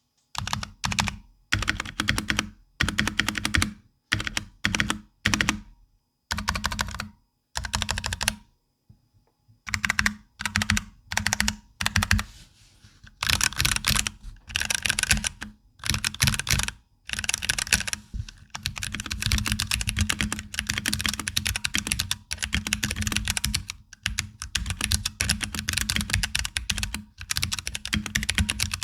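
Typing on a NovelKeys NK65 Entry Edition mechanical keyboard: Drop Halo Clear tactile switches in a frosted polycarbonate case, with PBT keycaps and stock plate-mount stabilizers. It starts as short bursts of keystrokes separated by pauses, then becomes steady fast typing from a little past halfway.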